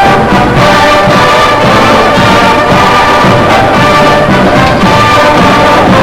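Brass-heavy orchestral music playing continuously, with held brass notes.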